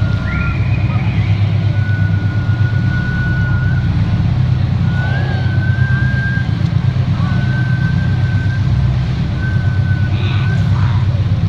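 A small motorboat's engine running steadily while backing out in reverse, with a thin high whine that holds, breaks off and comes back several times.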